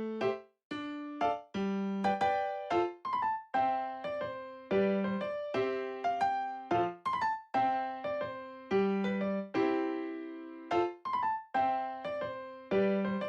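Background music: a light, bouncy electric-piano melody of short plucked notes, about two a second.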